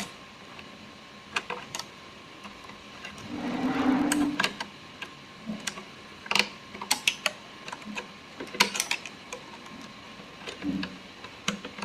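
Scattered clicks and metallic taps from a screwdriver and sewing machine parts as a screw is tightened. A brief grinding, whirring noise lasting about a second comes about three and a half seconds in.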